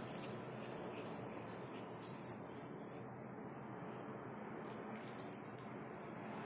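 Siamese cat biting and chewing blades of wheatgrass: faint, irregular small clicks over a steady background hiss.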